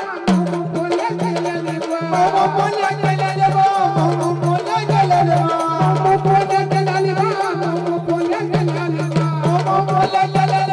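Marathi gondhal folk music: a harmonium-like drone holds steady notes under a fast, dense drum and jingling-percussion rhythm, with a wavering melody line joining about two seconds in.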